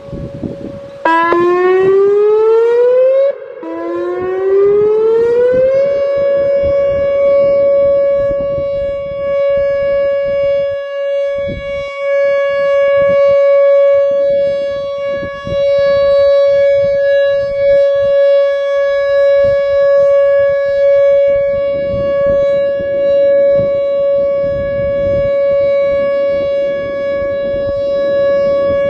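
Whelen WPS-2910 electronic speaker siren sounding its steady Alert signal in a test. About a second in, the tone glides up in pitch, breaks off and starts its rise again, then settles into one loud, steady, single tone that wavers slightly in loudness.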